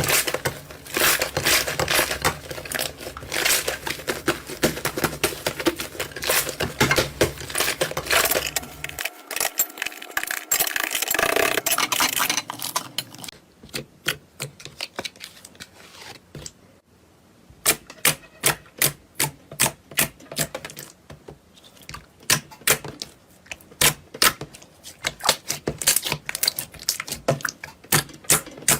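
Slime being squeezed and pressed by hand, first a dense run of crunchy crackling and popping. About halfway through it changes to separate sharp clicks and pops, one or two a second.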